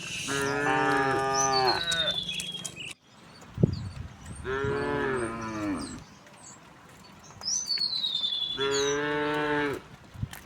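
Cows mooing: three long, drawn-out moos a few seconds apart, with a short thump between the first two.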